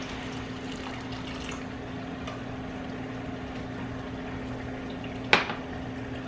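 Garlic butter sauce simmering in a stainless steel frying pan, a steady sizzling hiss over a low steady hum. About five seconds in comes a single sharp clink.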